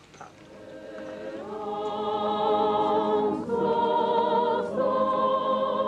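Choir singing slow held chords that fade in over the first two seconds and change every second or so.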